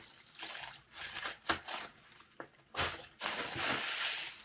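Plastic bubble wrap crinkling and rustling as it is cut open with scissors and pulled off, in several short bursts with a longer rustle near the end.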